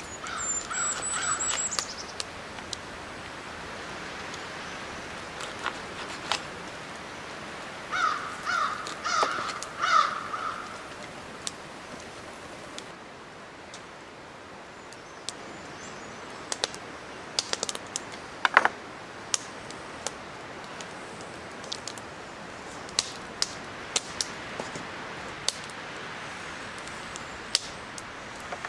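A crow cawing in two bouts, a few caws at the start and four more about eight seconds in. Between and after them come scattered light clicks and taps of a knife cutting smoked eel on a wooden board.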